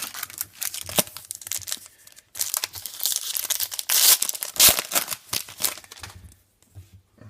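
Foil trading-card pack wrapper being crinkled and torn open: two stretches of crackling and tearing with a short pause between, the second louder.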